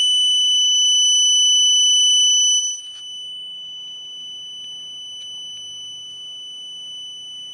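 The battery management board's buzzer in a Begode Master unicycle battery pack sounds a continuous, piercing high-pitched alarm tone. It is the BMS error alarm, set off because a cell group was disconnected while its tabs were being desoldered. About a third of the way in, the tone drops sharply in loudness but keeps sounding steadily.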